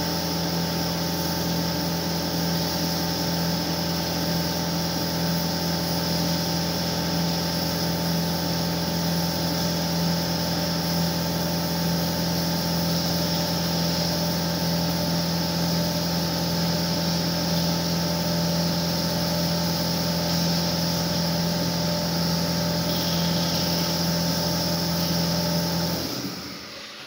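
Bomar Transverse 610.440 DGH band saw running with a steady, even hum, which dies away quickly near the end as the machine stops.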